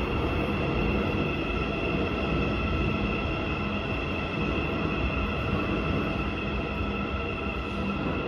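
Shinbundang Line six-car electric subway train pulling into an underground station behind platform screen doors. A steady rumble of wheels on rail runs under several steady high whining tones.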